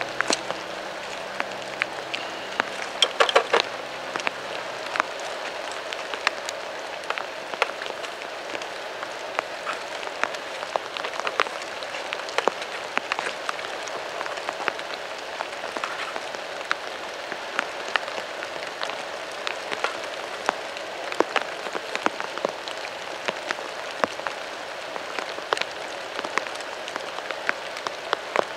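Swollen river rushing over a weir, a steady even rush of water, with scattered sharp ticks and taps throughout.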